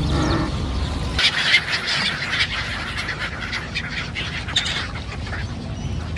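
A large flock of gulls calling over the river, many short overlapping cries. Before that, a low motor hum cuts off about a second in.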